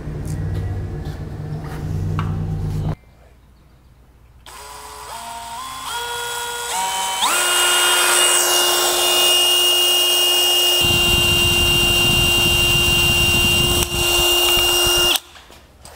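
Cordless drill motor speeding up in steps to a steady high whine, then drilling through the steel tube of a tractor grill guard, with a grinding rumble joining in as the bit cuts; it stops suddenly near the end. Before it, a low hum with a few clicks and a short lull.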